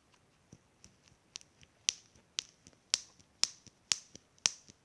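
A crackling squishy toy being squeezed over and over, giving sharp crackling clicks about two a second that grow louder after the first second or so.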